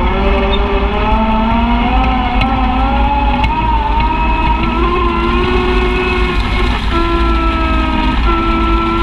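Side-by-side UTV engine running under way on a dirt trail. Its pitch climbs gradually over the first few seconds, then holds with a couple of small steps near the end, over a steady low rumble.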